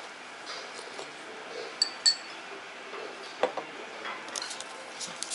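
Two quick light clinks of ceramic tableware about two seconds in, each ringing briefly, followed by a duller knock a second and a half later, over a steady restaurant background.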